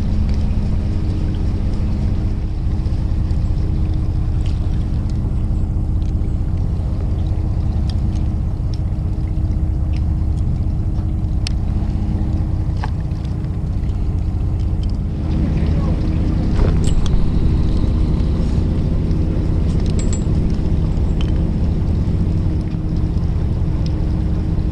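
Fishing boat's engine running steadily with a low hum; about two-thirds through its note shifts and gets a little louder. A few faint clicks sound over it.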